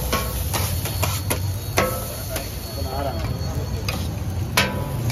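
Steel cooking utensils knocking sharply and irregularly, about every half second, some with a short ring, the loudest near the end, over a steady low hum.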